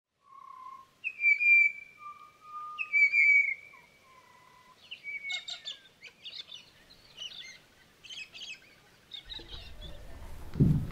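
Birdsong: two loud, clear whistled phrases in the first few seconds, followed by a run of short, quick chirps. Near the end a hum of room noise comes in with a low thump.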